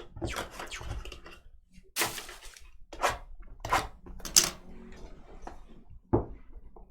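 A cardboard trading-card box being handled and opened: a series of separate rustles, crinkles and light knocks, a few of them sharper, about a second or so apart.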